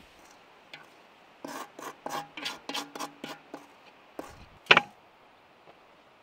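A stainless steel mixing bowl handled on a wooden table: a quick run of short rubbing, scraping strokes with a faint metallic ring, then one loud knock a little before the end as it is set down.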